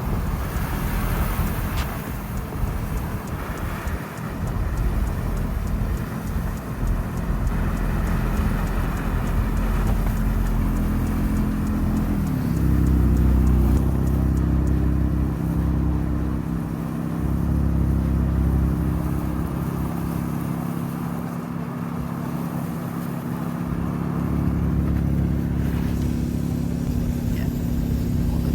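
Car engine running steadily under road and tyre noise while driving, its pitch dipping and rising briefly about twelve seconds in and then holding slightly louder.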